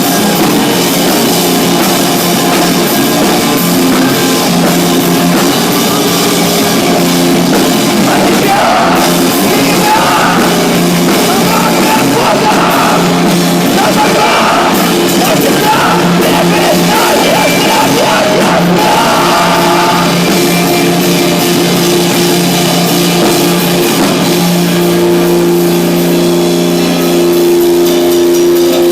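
Rock band playing loud, heavy music live: drums and sustained low guitar notes, with a voice singing or shouting through the middle stretch.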